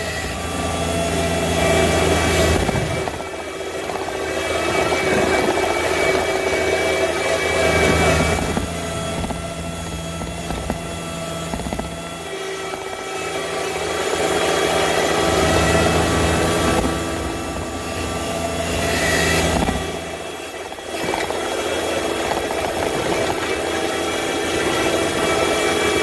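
John Deere 1025R compact tractor's three-cylinder diesel engine running while the tractor clears snow with its front loader. The engine sound swells and eases every few seconds as the load changes.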